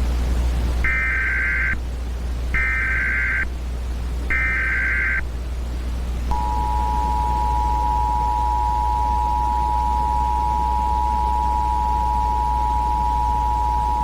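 Emergency Alert System tones: three short bursts of SAME header data, then the two-tone attention signal, which starts about six seconds in and holds steady. Together they mark the start of an emergency alert broadcast. A steady low hum runs underneath.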